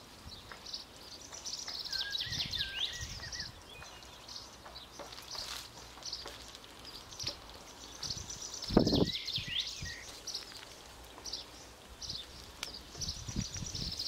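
Small garden birds singing and chirping: many short, high, repeated notes and a few quick downward-sweeping calls, over a low rumble. A single dull thump comes about nine seconds in.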